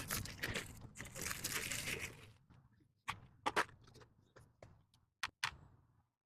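Packaging of a stainless steel hose clamp kit rustling and crinkling as it is opened for about two seconds, then a handful of short, sharp clicks as the kit is handled.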